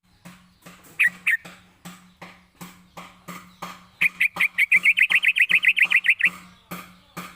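Yellow-vented bulbul (trucukan) song: two loud short notes about a second in, then from about four seconds a fast rolling trill of some twenty notes lasting about two seconds, the long 'ropel' phrase used as a lure call. A regular clicking beat, two to three strokes a second, runs underneath.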